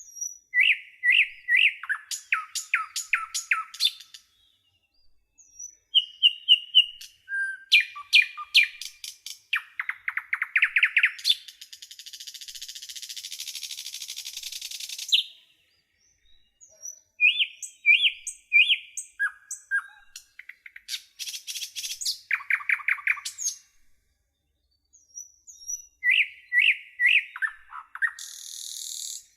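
A songbird singing in separate phrases a few seconds apart, with short silences between them. The phrases are runs of quick repeated whistled notes and fast trills, with a long buzzy rattle about twelve seconds in.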